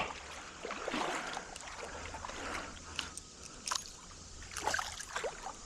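Someone wading through a shallow creek: water sloshing and splashing around the legs in uneven steps, over the creek's steady trickle.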